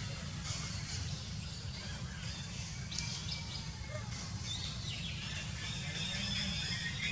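Outdoor forest ambience: birds chirping now and then over a steady low rumble.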